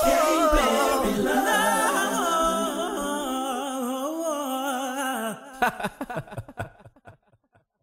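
Song outro: singing voices holding a wavering final melodic line that stops about five and a half seconds in, followed by a quick string of short, fading repeats.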